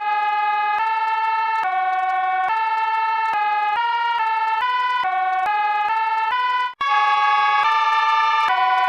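Brazil EAS emergency-alert alarm tone run through 'Preview 2' audio effects: a loud, buzzy electronic tone stepping between pitches about every half second. It cuts out for an instant about two-thirds of the way through, then comes back slightly louder.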